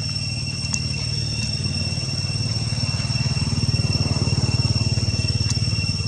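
An engine running steadily with a fast low pulse, swelling a little in the middle, under a steady high-pitched whine.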